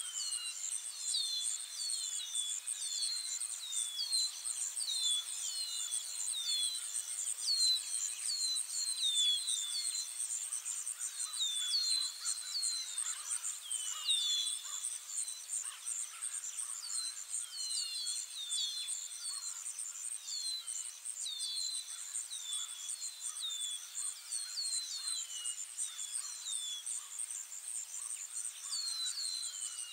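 Nature ambience: a steady, high-pitched insect chorus, with short chirps that drop in pitch, repeated about one or two a second in loose clusters.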